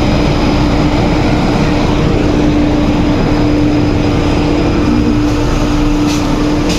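Drilling rig machinery running loudly and steadily during casing running, a constant hum over heavy mechanical noise.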